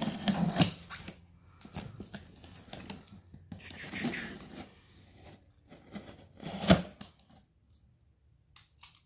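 Box cutter slicing through packing tape on a cardboard box, with scraping and tearing of tape and cardboard handling, and one sharp knock about two-thirds of the way through.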